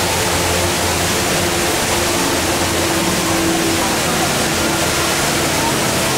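The HSBC Rain Vortex indoor waterfall pouring steadily: a loud, even rush of falling water with no let-up. Indistinct voices sound faintly underneath.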